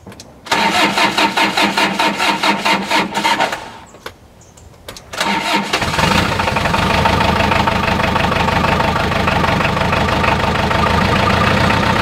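Compact diesel tractor engine cranked by its starter for about three seconds without firing. After a short pause it is cranked again, catches about five and a half seconds in, and runs steadily. It starts now that a clog in the fuel line has been blown out and air bled from the injector pump.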